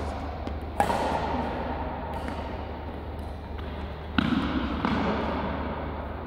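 Badminton rackets striking a shuttlecock in a rally: a sharp hit about a second in, then two more close together just past four seconds, each ringing on in the hall's echo. A steady low hum runs underneath.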